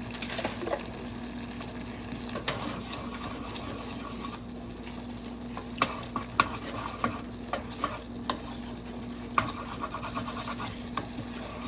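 A spoon stirring rice in a pan, with irregular clicks and scrapes of the spoon against the pan, thickest in the second half, over a steady low hum.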